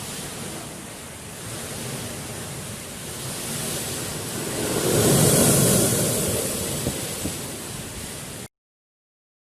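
Dense rushing storm noise that swells to its loudest about five seconds in, then cuts off suddenly near the end.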